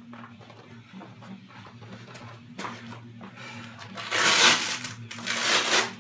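Hook-and-loop (Velcro) closures of a plate carrier being ripped open: two loud tearing rips, each just under a second, starting about four and five seconds in, with a smaller rip a little earlier.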